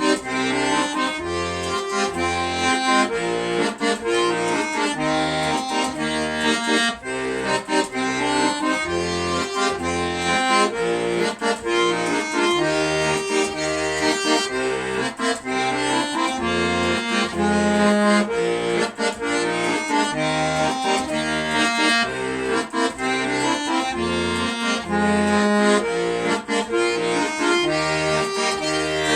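Solo instrumental music: a melody over a steady, regular low bass-and-chord accompaniment.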